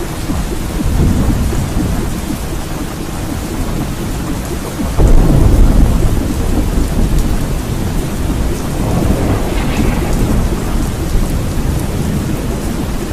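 Steady rain with rolling thunder; a heavy, low thunder rumble breaks in suddenly about five seconds in and slowly fades back into the rain.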